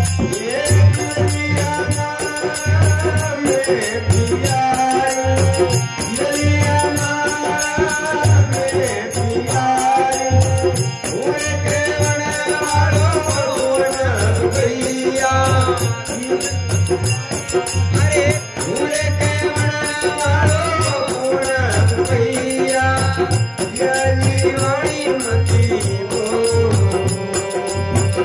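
Rajasthani folk song: harmonium playing a held, droning melody over a steady low drum beat and a jingling rattle, with a male voice singing long, gliding notes.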